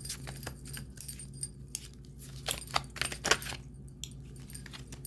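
A tarot deck being shuffled and handled: a run of quick, sharp card clicks and snaps, busiest a little past the middle, over a steady low hum.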